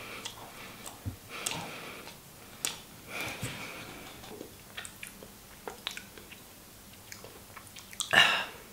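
A person chewing a mouthful of bread that has lain for months, with irregular soft mouth noises and small clicks. A brief louder burst of sound comes near the end.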